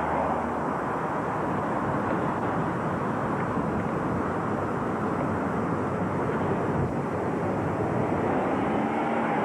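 Steady rushing street traffic noise, even and unbroken.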